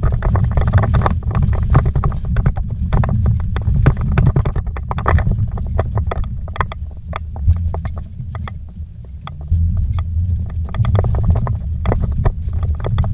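Vehicle driven fast over a rough, rocky dirt track, heard from inside the cabin: a constant low rumble of engine and tyres, with frequent sharp knocks and rattles as it jolts over the bumps. It eases briefly about two-thirds of the way through, then picks up again.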